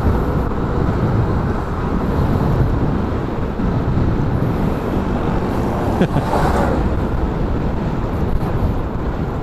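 Wind rushing over the microphone with motorcycle engine and road noise while riding at speed, with a short louder rush about six seconds in.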